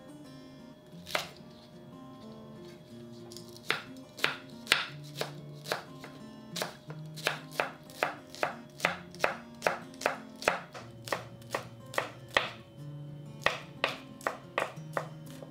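Kitchen knife slicing a scallion on a bamboo cutting board: one knock about a second in, then a steady run of sharp knocks of the blade on the wood, about three a second, over background music.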